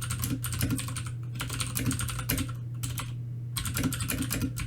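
Typing on a computer keyboard: a quick run of key clicks with two short pauses, heard from behind a cardioid USB condenser microphone, off its pickup side. A steady low hum runs underneath.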